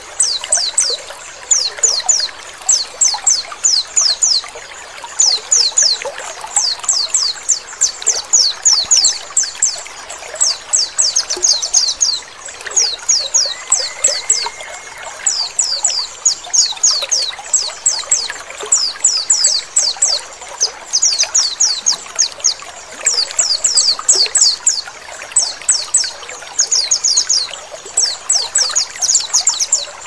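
White-eye (pleci) in 'ngecal' calling: runs of four to six quick, high, descending chirps repeated over and over with short gaps. Under it is a steady sound of trickling, flowing water.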